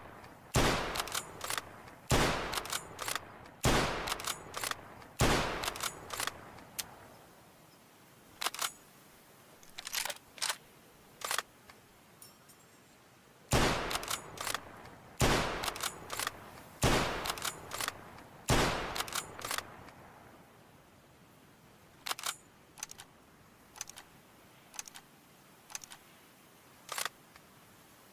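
Mosin-Nagant bolt-action rifle firing, sharp shots with a ringing tail, in two runs of four about a second and a half apart. Lighter sharp clicks come between and after the runs.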